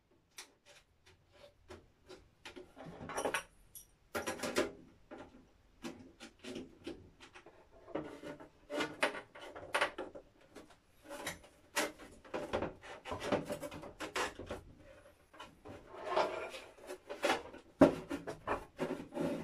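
Clear plastic terrarium and lid being handled and fitted together: irregular clicks, knocks and rubbing of plastic on plastic and on the wooden bench, with a sharp knock near the end.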